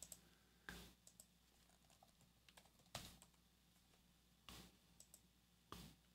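Near silence: room tone with a few faint, short clicks spaced a second or more apart.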